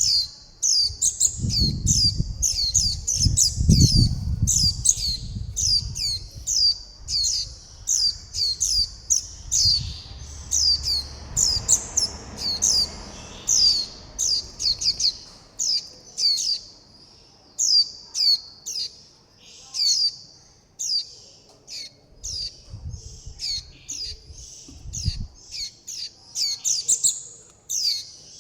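Juvenile white-eyes giving a steady stream of short, high, falling begging and contact calls, several birds overlapping. Low rumbling bursts come in twice, near the start and again near the end.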